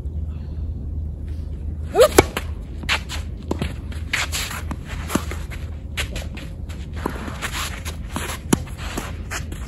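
Tennis rally: sharp strikes of rackets on the ball at irregular intervals, the loudest pair about two seconds in, with footsteps and shoe scuffs on the court between shots.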